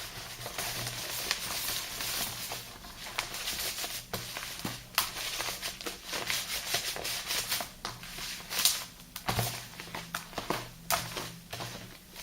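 Thick soap lather and sea-salt paste being worked and squished, giving an irregular wet crackling with sharp clicks. The loudest click comes about two-thirds of the way through.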